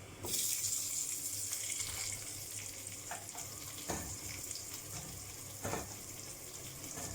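Small onions and garlic dropped into hot fat in a kadai, bursting into a loud sizzle about a third of a second in, then frying steadily with a few knocks against the pan.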